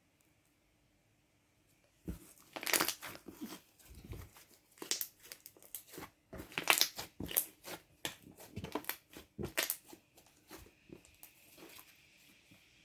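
Slime being squished and stretched by hand, making irregular crackles and pops of trapped air. They start about two seconds in and thin out to faint ticks near the end.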